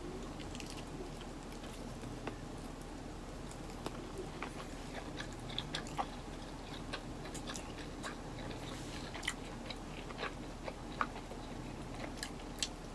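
Close-up mouth sounds of a person biting and chewing a seaweed-wrapped rice roll: soft, irregular wet clicks and smacks over a faint steady room hum.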